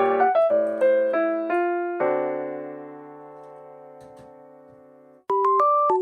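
Background music: electric piano playing a light, bouncy melody that ends on a long held chord fading out, then a new bright keyboard tune starts near the end.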